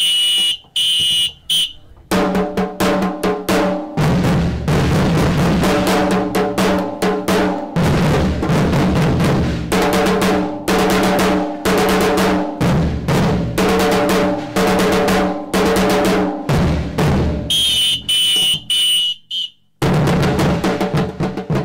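Drum ensemble of large aluminium-shelled bass drums struck with felt mallets together with a snare drum, playing a fast, dense rhythm that stops briefly near the end and starts again. A shrill whistle sounds at the start and again just before the break, cueing the drummers.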